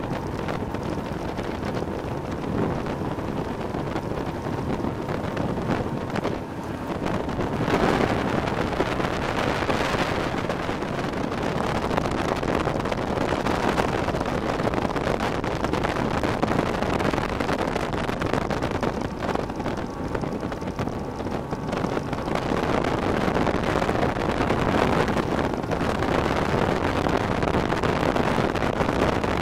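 Wind rushing over the microphone of a bass boat running at speed across choppy water, with the steady drone of its outboard motor beneath it. The noise swells louder a few times.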